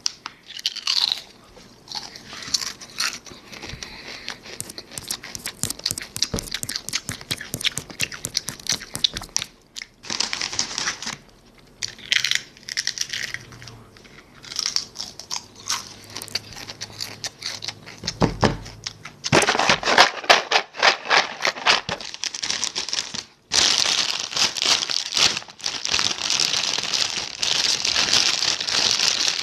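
Crinkly material being crumpled and handled: a dense, rapid crackling that grows louder and nearly continuous in the last third.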